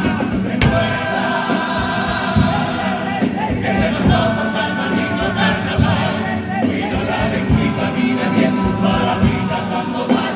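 A carnival comparsa, a male choir, singing in harmony through stage microphones, with guitars accompanying.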